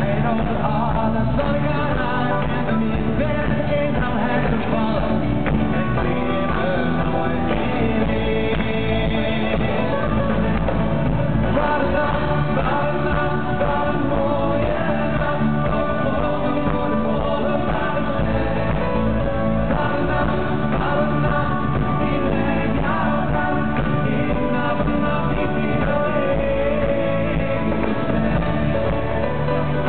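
Live pop-rock band playing: two male singers over strummed acoustic guitar, electric bass and drums, steady and loud.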